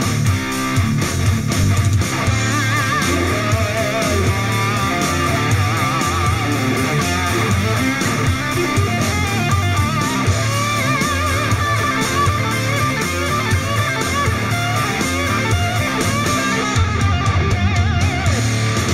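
Rock music with strummed electric guitar, played through a JBL Flip 3 portable Bluetooth speaker for a sound test. The treble drops away near the end.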